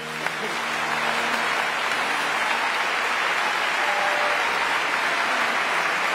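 Audience applauding, swelling in over the first second as the last held sung note dies away, then steady.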